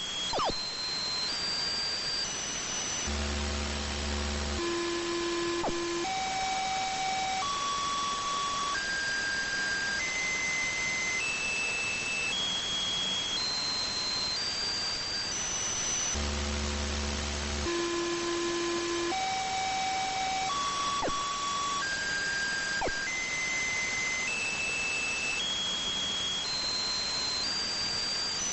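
Radio receiver tuned to 146.328 MHz, playing an unidentified signal: a series of steady tones stepping upward in pitch about once a second, from a low hum to a high whistle. The series starts over about every 13 seconds, over constant radio hiss.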